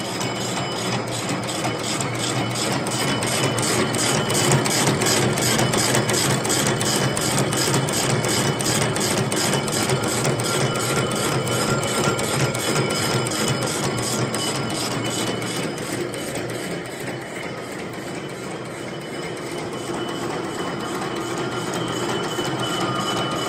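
Double-twist barbed wire machine running: a steady mechanical hum with a fast, even clatter, several strokes a second. It quietens somewhat about two-thirds of the way through, then comes back up.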